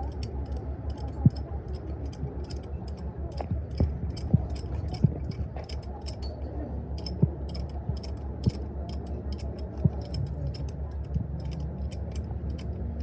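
Metal clinking and knocking at irregular intervals, with one sharper knock about a second in, over a steady low machine hum in a heavy-equipment repair workshop.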